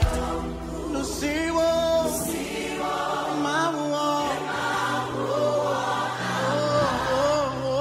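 Background music: a choir singing over held bass notes.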